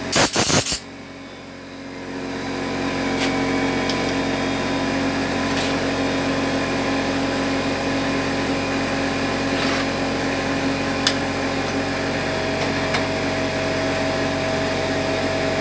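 A few sharp blasts of compressed air from an air blow gun, then a motor starts about two seconds in and runs steadily with a constant hum and hiss.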